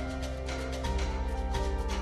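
Background music: held instrumental notes over a steady bass line, with a regular beat.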